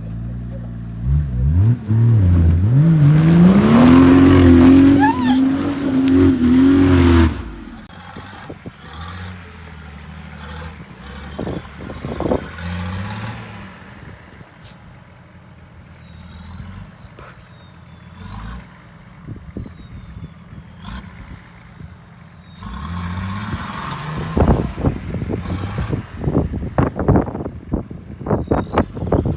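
Nissan Patrol Y61's swapped-in BMW M57 3.0 diesel engine revving hard, climbing and held at high revs for several seconds, then cutting off sharply. After that it runs quieter with a thin high whistle that rises and falls. Near the end it is loud again, with a rapid clatter of knocks and thuds.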